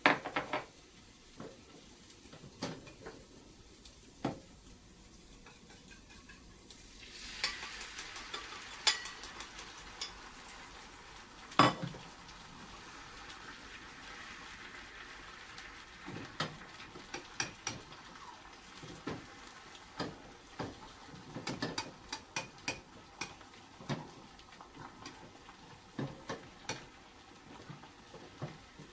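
Cooking utensils clicking and knocking against dishes and a frying pan. About a quarter of the way in, a sizzle of food frying starts and carries on under the clicks, with one louder knock shortly after it begins.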